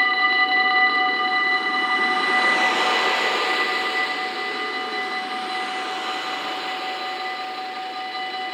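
Automatic level-crossing warning bells sound as a steady multi-tone ring while a VIRM double-deck electric train passes. The train's rush swells to its loudest about three seconds in, then fades away under the bells.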